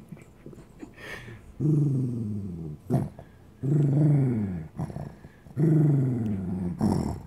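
Small white dog growling while guarding its bone: three long, low growls about two seconds apart, each sliding down in pitch, the first starting about a second and a half in.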